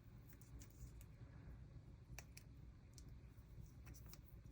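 Near silence, with a few faint, separate clicks of sticker sheets and paper being handled.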